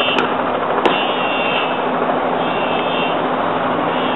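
Helicopter rotor and engine running steadily at a distance, heard as a continuous rushing noise with a low hum. Two small clicks come near the start.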